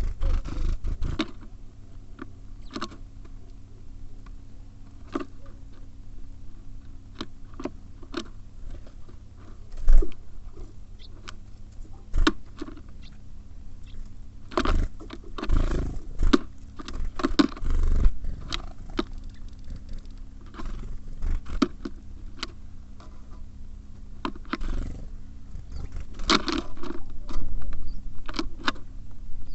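Small birds at a wooden feeder pecking seed and landing and hopping on it: irregular taps, knocks and scrapes, with a few heavier thuds, over a faint steady hum.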